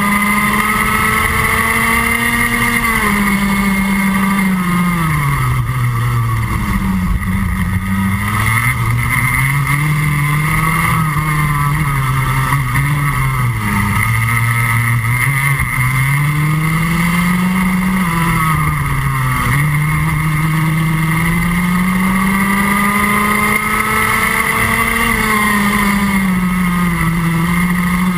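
Junior Rotax kart's single-cylinder two-stroke engine at racing speed, heard from on board: the note climbs steadily on the straights and drops sharply under braking into the corners, several times over.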